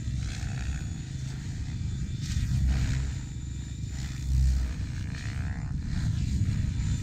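Large electric RC helicopter, a Mikado Logo 690, flying aerobatics: rotor and motor noise rising and falling, with louder swells about three seconds in and again about four and a half seconds in.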